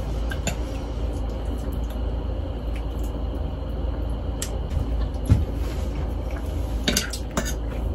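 A metal fork clinking and scraping against a plate as spaghetti is twirled and eaten, in a few scattered clicks with a quick cluster near the end.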